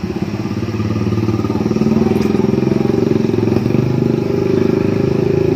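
A motorcycle engine running steadily with a fast pulsing beat. It grows louder over the first two seconds, holds, then drops away abruptly at the end.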